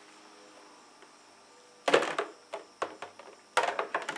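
Plastic duck decoys hanging from a carabiner, knocking and clattering against each other and their decoy weights as they swing on their lines. A sharp clatter comes about two seconds in, then a few lighter clicks, then another run of knocks near the end.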